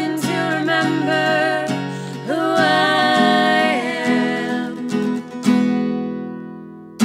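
Two women singing together over a strummed acoustic guitar. The voices hold a long note and stop about four seconds in, then a guitar chord rings out and fades.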